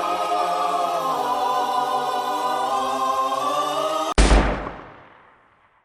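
A choir holding a sustained sung chord, cut off about four seconds in by a single loud bang that dies away slowly over a second and a half.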